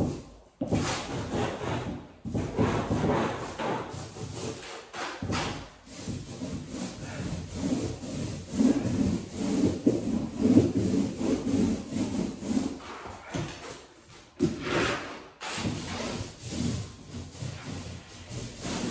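Mini paint roller rolling paint back and forth over a wooden door: a repeated rubbing sound of the sleeve on the surface, with a few short breaks between runs.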